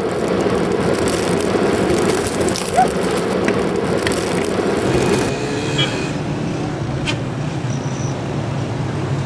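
Motorcycle engine running in city traffic. About five seconds in, the sound changes to a steady street-traffic hum with a few short beeps.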